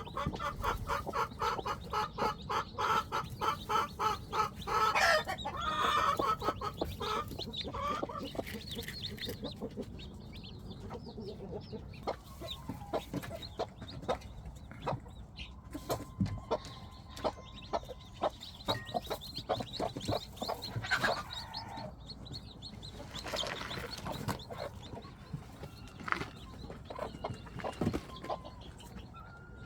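Chickens clucking: a rapid run of clucks for the first several seconds, then sparser, scattered calls.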